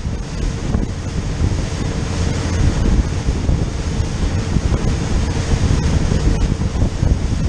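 Wind buffeting the microphone over the steady rush of spray thrown up by a motor yacht's hull running at speed.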